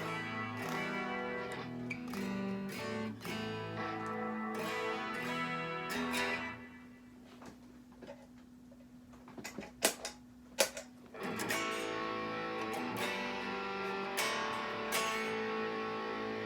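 Ibanez Mikro Destroyer electric guitar played through a Boss Katana 50 MkII amp, ringing chords and notes. The playing drops away for about four seconds in the middle, broken by two sharp clicks, then starts again.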